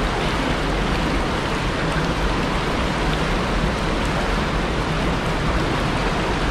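River water rushing and splashing, the current breaking around rocks and around a person wading waist-deep; a steady, even noise throughout.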